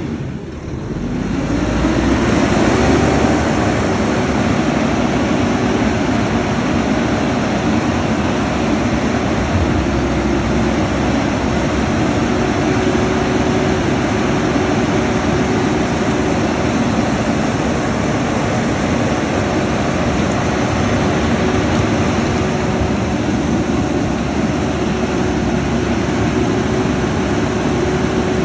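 Mack recycling truck's diesel engine running, rising in pitch about a second in and then holding a steady raised idle.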